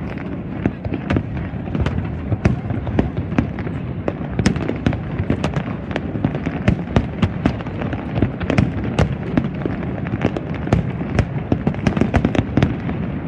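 Aerial fireworks display going off: a dense, irregular string of bangs and crackles, several a second, over a continuous low rumble.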